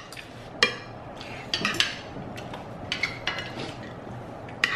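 Forks and spoons clinking against plates at a meal table: a run of irregular light clinks, a few of them ringing briefly.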